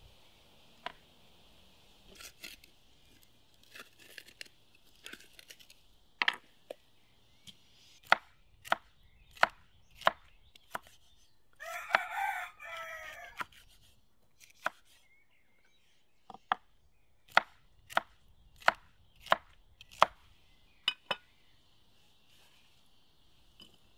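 Chef's knife slicing a red bell pepper on a wooden cutting board: sharp knocks of the blade on the board, in steady runs of about one and a half a second. About halfway through, a rooster crows.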